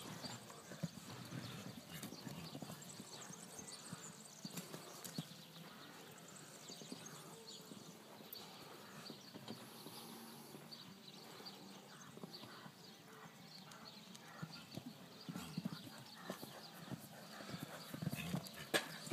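A horse cantering on an arena's sand footing, its hoofbeats coming as soft repeated thuds. They grow louder near the end as the horse passes close.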